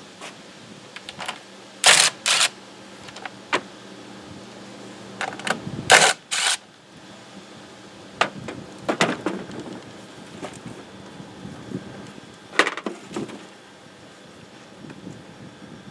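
Cordless impact driver run in short bursts on the engine's fasteners: two quick bursts about two seconds in and two more about six seconds in, with scattered clicks and knocks of tools and parts between.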